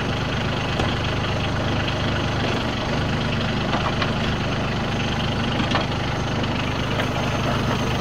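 Branson compact tractor's diesel engine idling steadily, with a few faint clicks over it.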